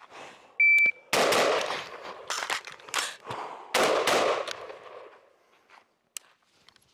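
A short electronic beep, then an AR-15-style rifle fired in a quick string of shots over about four seconds, each shot echoing.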